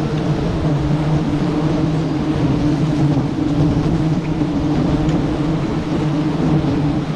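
Dense swarm of honeybees buzzing as a steady, loud drone with a low hum throughout, as the hive is disturbed.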